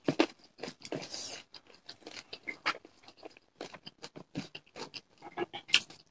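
Close-up chewing and crunching of food, with a quick, irregular run of crisp crunches and wet mouth clicks. The crunches come from handfuls of rice and bites of raw onion.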